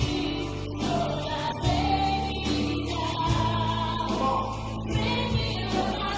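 Worship music: a group of voices singing over a band, with long held bass notes and a few light drum hits.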